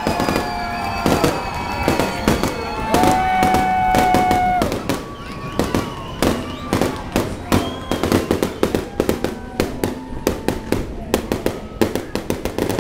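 Aerial fireworks bursting, a rapid crackling run of pops from about midway on. Steady held tones sound under the bursts in the first half.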